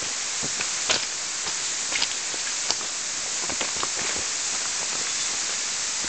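Footsteps crunching irregularly on a stony woodland path, heard as scattered short clicks over a steady high hiss.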